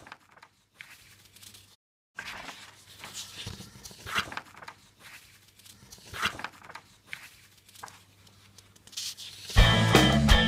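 A pen scratching faintly on paper in short, irregular strokes as cursive words are written. Near the end, loud guitar-band music starts.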